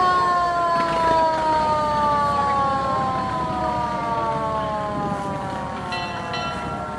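Fire truck siren winding down: one long tone that falls slowly and steadily in pitch. A short higher tone sounds briefly about six seconds in.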